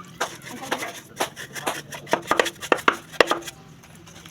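A quick, irregular run of sharp clicks and knocks from hard parts being handled and tapped, a few with a brief ringing note, while a motorcycle's air filter box is being cleaned.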